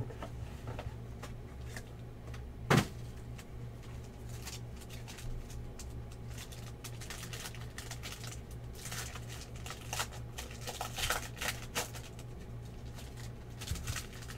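Hands handling a trading-card box and crinkling a foil pack wrapper, with one sharp knock about three seconds in and a spell of rustling near the middle, over a steady low hum.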